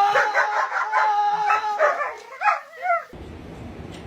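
A dog howling: one long held note, then several shorter yowls that rise and fall, breaking off about three seconds in.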